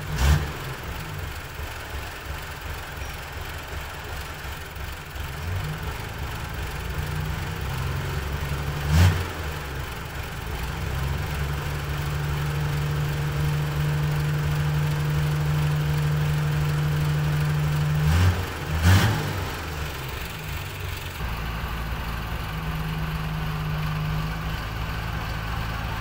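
Small crawler bulldozer's diesel engine running steadily, working harder and louder for several seconds past the middle, with a few sharp knocks: one near the start, one about halfway, and two close together a little later.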